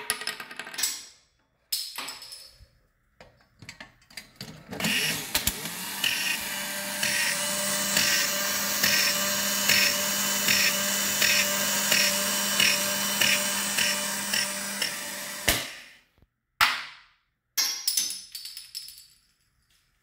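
A battery-operated tin rocket-launcher toy: a sharp snap as the spring-fired rocket shoots off, some knocks and rattles, then the toy's small electric motor and gears whirring steadily for about ten seconds with a regular ticking about twice a second as the astronaut's arm mechanism goes up and down. It stops with a click, followed by more clattering.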